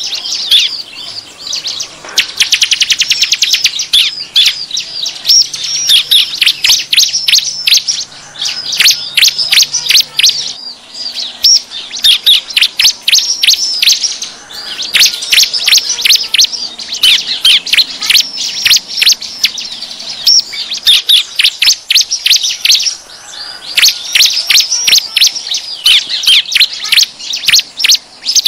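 Bar-winged prinia (ciblek) calls in a rapid, noisy chatter of sharp chirps. The chatter comes in long runs broken by short pauses, with a very fast rattle about two seconds in. This is a lure call meant to draw wild prinias in.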